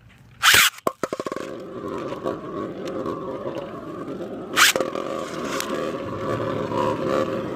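A loud sudden zip about half a second in, like a Beyblade ripcord launch, then a 3D-printed Beyblade top spinning and scraping in a plastic stadium with a steady whir, and a sharp clack about halfway through.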